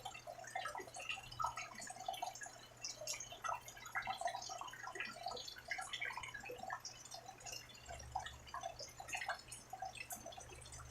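Rain falling, heard as many irregular drips and droplet taps at close range, with a faint steady low hum underneath.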